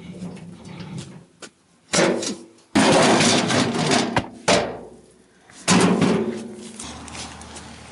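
A large flat stone being tipped out of a metal wheelbarrow: several loud bursts of stone scraping and knocking on the barrow's steel tray, the longest lasting about a second and a half.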